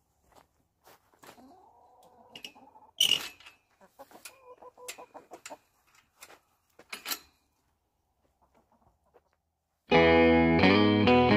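Domestic hens clucking softly around a chain-link run, with scattered knocks and a louder clatter about three seconds in. Near the end, loud music with electric guitar cuts in.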